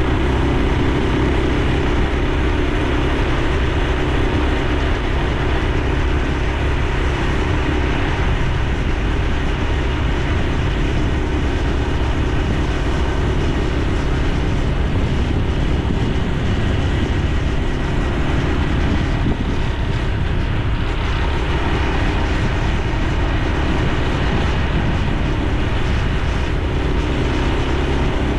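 Honda Super Cub C125's single-cylinder four-stroke engine running steadily while the motorcycle is ridden along the road, its exhaust note and road noise unbroken throughout.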